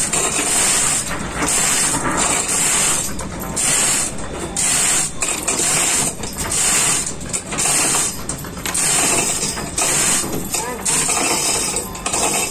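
Manual chain hoist being hauled hand over hand: chain rattling through the block and the ratchet clicking in repeated pulls about once a second, as it drags a heavy marine gearbox.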